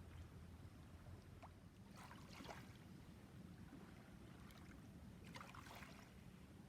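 Faint water splashing at the river's edge, twice, about two seconds in and again near the end, over a low steady rumble of wind.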